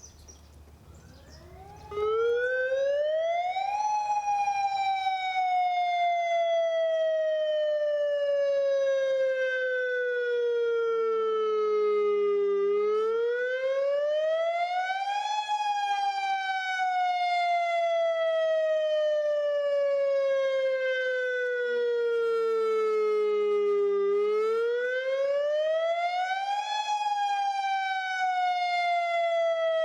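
Federal Signal Modulator outdoor tornado warning siren sounding a wail during a test. It comes in about two seconds in, and its pitch climbs quickly over a couple of seconds and then sinks slowly over about eight seconds, three times over.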